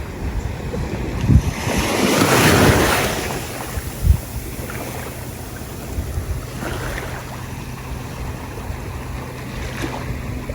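Sea waves washing onto a beach, with wind on the microphone. One wave swells up and washes through about two seconds in, and there are a couple of low thumps of wind buffeting.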